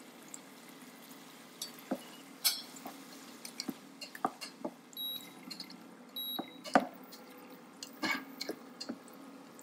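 Plastic slotted spatula stirring and scraping a thick, wet onion-tomato masala as it fries in a ceramic-coated pot, with scattered taps and clicks against the pot and soft squishing. A steady low hum runs underneath, and two short high beeps sound about five and six seconds in.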